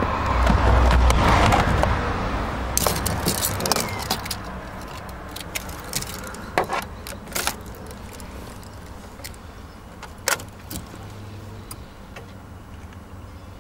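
Car keys jingling on their ring, with a run of light clicks and knocks as they are handled at the dashboard. The car's ignition comes on by the end. The first couple of seconds carry a low rumbling handling noise.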